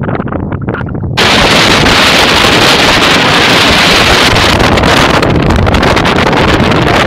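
Wind buffeting the microphone: a second of uneven, weaker gusts, then a sudden loud, steady rushing noise.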